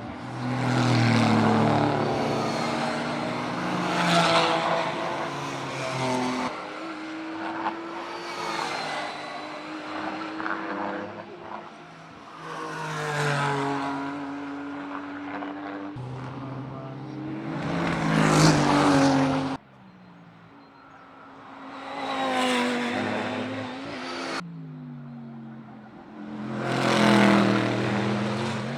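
Racing cars passing at speed one after another, about seven in all. Each engine swells to a loud peak and then drops in pitch as it goes by. The sound cuts off sharply several times between takes.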